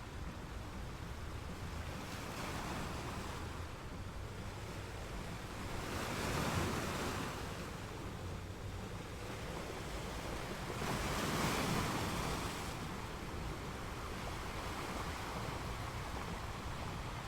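Sea waves washing onto a beach, a steady hiss of surf with two larger waves swelling and breaking, one about six seconds in and one about eleven seconds in.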